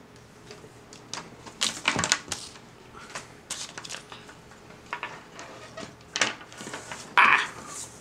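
A power cable being unrolled and handled by hand on a wooden tabletop: irregular clicks, taps and rustles, with a louder rustle a little after seven seconds.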